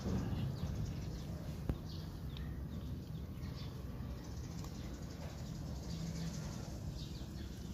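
Cats eating fish from a plate at close range: chewing and lapping, a run of small wet clicks and smacks, with one sharper click a little under two seconds in.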